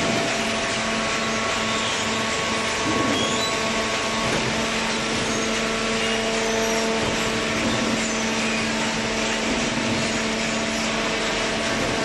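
Horizontal hydraulic cardboard baler and its feed conveyor running: a steady machine noise with a constant hum and whine.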